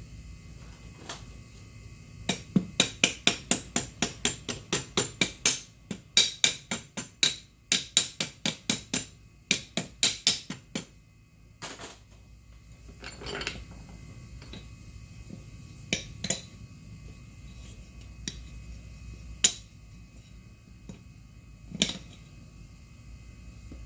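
Rapid hammer strikes on metal, about four sharp taps a second, in two runs of several seconds each with a short break between. A few single knocks and clinks follow.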